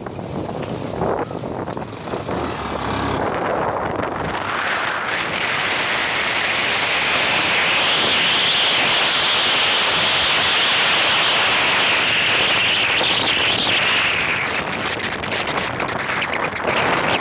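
Wind rushing over the microphone of a phone carried on a moving motorcycle, with the bike's running noise underneath. The rush builds a few seconds in, holds steady, and eases off near the end.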